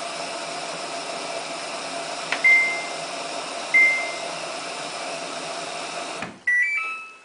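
Samsung WF8804RPA washing machine control panel beeping twice over a steady hum. About six seconds in the hum cuts off and the machine plays a short melody of stepped beeps, as it does when switched off or reset out of its service test mode.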